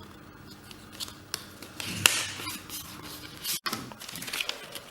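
Handling of unboxing contents: scattered small taps and clicks with a brief paper-like rustle about two seconds in, as a paper instruction leaflet and the packaging are picked up and moved.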